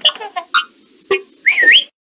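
R2-D2 droid beeps and whistles: a quick run of short electronic chirps, ending in a warbling whistle that cuts off suddenly near the end.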